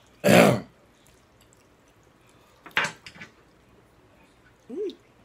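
Spicy noodles being slurped from a fork, two loud slurps about two and a half seconds apart, followed near the end by a brief hummed sound.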